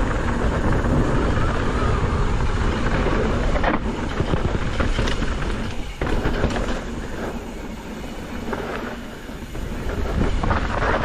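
Specialized Status 140 mountain bike ridden fast downhill over rough dirt trail: continuous tyre roar and rumble with wind on the microphone, the bike clattering over bumps and sharp knocks from hits on roots or rocks every few seconds.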